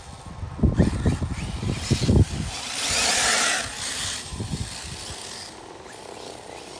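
Arrma Typhon 6S 1/8-scale RC buggy with its brushless motor driving through thick grass at a distance, a rushing sound of motor and tyres that swells about three seconds in and then fades. Wind buffets the microphone in low rumbles during the first couple of seconds.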